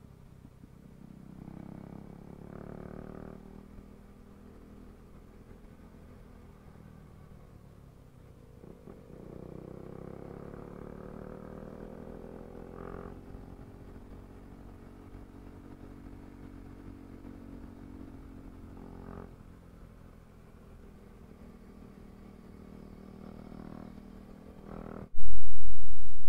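KTM RC390's single-cylinder engine running under way, its pitch rising as it accelerates several times, most clearly about nine to thirteen seconds in. Near the end a sudden loud low rumble cuts in and fades.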